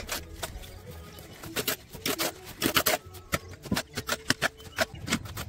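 Steel mason's trowel scraping and clinking against an iron mortar pan and slapping cement mortar onto a brick wall: a run of sharp, irregular clicks and scrapes, busiest in the middle.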